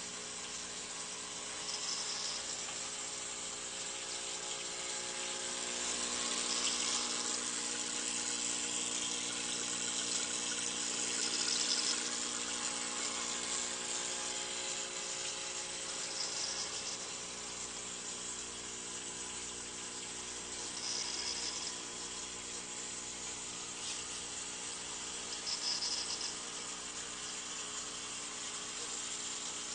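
Water running and trickling through a small aquaponics system, over the steady hum of its pump, with a brighter hiss returning about every five seconds.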